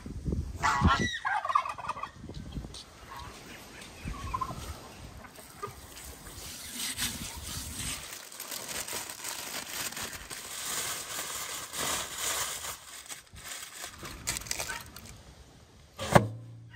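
A domestic fowl calling in one short warbling burst about a second in, followed by faint yard noise, with a single sharp knock near the end.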